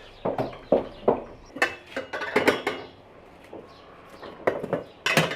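Metal kitchenware clattering and clinking: a quick run of knocks and ringing clinks for the first three seconds, then a few more strikes near the end.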